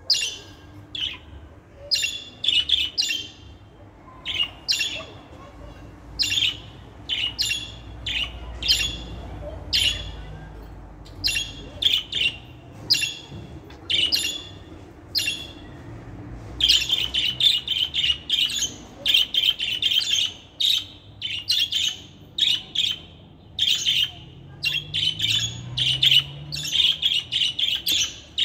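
Budgerigars chirping: short, sharp, high chirps in quick series, coming thicker and faster in the second half.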